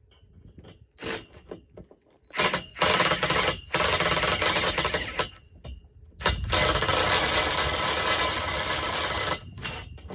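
Power drill boring through schedule 40 metal pipe with a titanium-coated twist bit, run in several long pulses with short stops, the longest near the middle and a few short bursts near the end.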